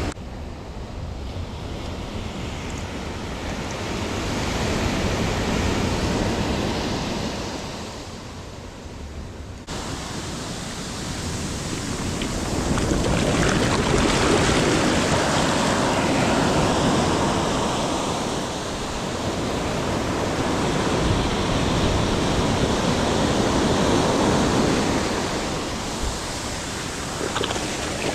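Ocean surf breaking and washing up the shore, swelling and ebbing every few seconds, with some wind on the microphone.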